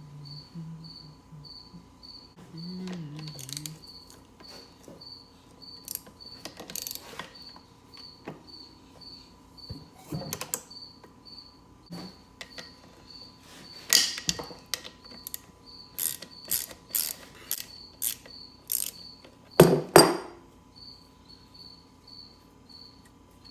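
Metal clinks, clicks and knocks of hand tools and parts during the teardown of a Honda CR250 two-stroke engine. Two sharp knocks about 20 seconds in are the loudest. A cricket chirps steadily throughout, about three chirps a second.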